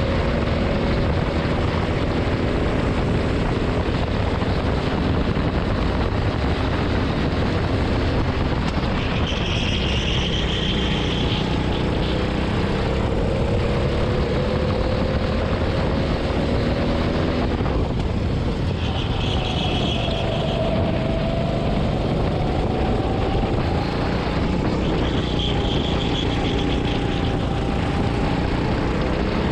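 Kart engine running at race pace, heard from the driver's seat over a steady rush of noise. Its pitch climbs slowly, drops sharply about two-thirds of the way through and climbs again. A brief high squeal comes in three times.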